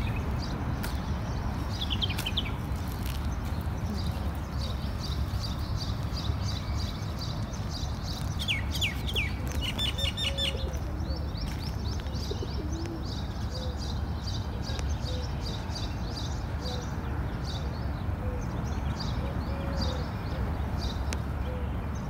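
Small birds chirping in quick high series, with a few fast downward-sweeping calls about two seconds in and again around nine to ten seconds. Short low pigeon-like notes repeat faintly in the second half, over a steady low rumble.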